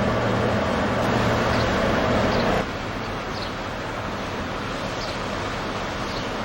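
Steady rush of rain and sea with a low, even engine hum that cuts off abruptly about two and a half seconds in, leaving only the rain and waves.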